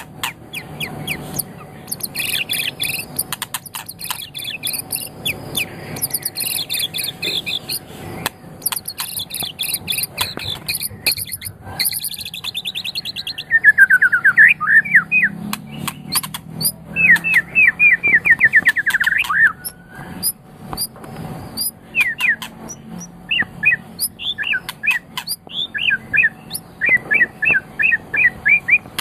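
White-rumped shama (murai batu, Medan type) singing a long, varied song. Rapid high trills and chatter give way about halfway through to loud, fast runs of lower sweeping whistled notes, then to scattered short whistles.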